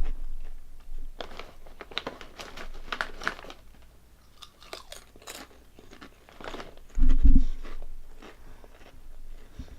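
Close-up crunching and chewing of potato chips (Calbee Honey Butter Chips), in crackly spells of bites, with one loud low thump about seven seconds in.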